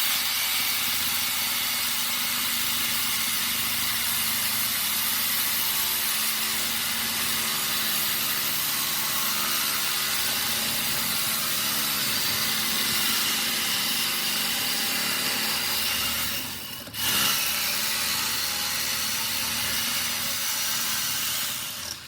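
Power saw with a blade that may be getting dull, cutting steadily through a microwave magnetron's steel and copper. The cut pauses briefly about three quarters of the way through, then runs on and stops near the end.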